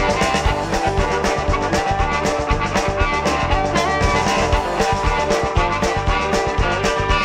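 Blues band recording playing, with drums keeping a steady beat under sustained instrumental notes.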